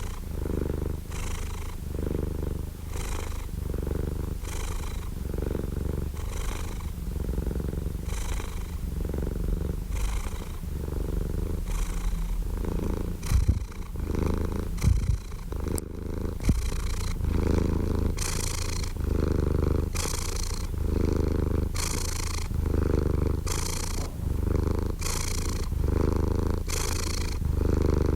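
Domestic cat purring, a steady low rumble that swells with each breath in and out, about once a second. A few brief bumps sound around the middle.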